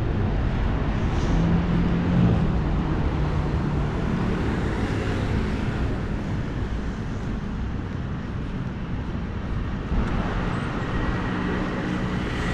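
Street traffic: car engines running with a steady hum of road noise.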